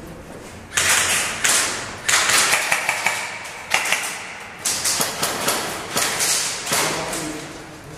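An irregular series of knocks and scuffing noises, each dying away over about half a second, from gear and the gun-mounted camera being handled and moved.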